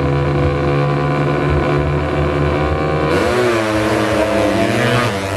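Two fuel-injected 200cc underbone drag-racing motorcycles held at high revs on the start line, then launching about three seconds in, the engine pitch sweeping and dropping through the gears as they pull away.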